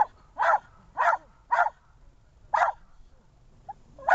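Miniature schnauzer barking at a helper it has found in a training blind: four sharp barks about half a second apart, a pause, then another bark and one more at the very end.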